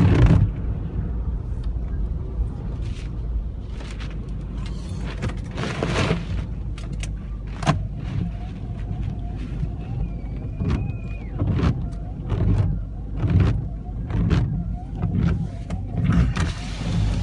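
A car running with steady low engine and road rumble, with irregular knocks and clatters over it.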